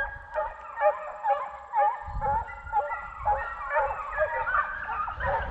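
A pack of deer hounds baying while running a deer: many short, overlapping calls that grow thicker toward the end. A low rumble joins from about two seconds in.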